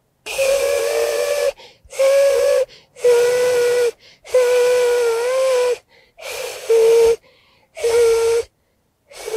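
Beatbox whale whistle made with the cheek pulled out by hand: about seven breathy, hissing blows of half a second to a second and a half, each carrying a steady held note, one of them wavering, with short pauses between.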